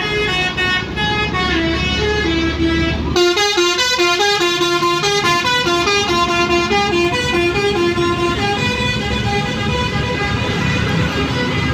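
A bus's Basuri telolet musical horn plays a quick tune of short stepped notes over a low rumble. About three seconds in the tune gets louder and busier, and it thins out near the end.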